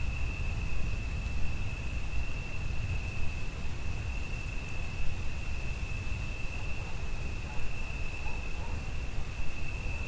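Cricket trilling in one steady, unbroken high note, over a low rumble and a faint hiss of rain.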